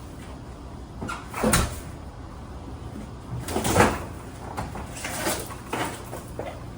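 Clattering knocks and scrapes of hardware being handled, the two loudest about a second and a half and nearly four seconds in, over a steady low hum.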